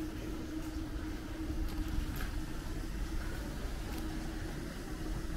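A motor vehicle running close by in street traffic: a steady low rumble with a constant hum.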